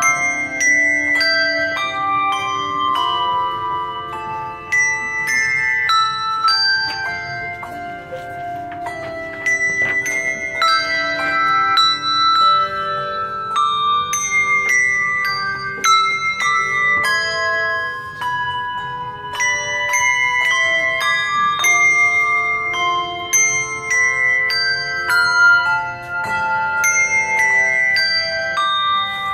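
Handbells playing a melody with chords: each note starts with a sharp strike and rings on, overlapping the next, with several bells often sounding together.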